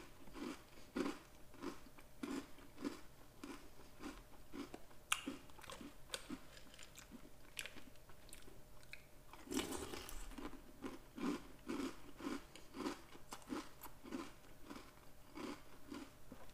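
A person chewing a mouthful of Oreo O's cereal with crunching, about two chews a second. The crunching is louder and denser for a moment about ten seconds in.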